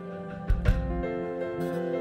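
Soft background music of sustained chords, with two sharp thumps about half a second in.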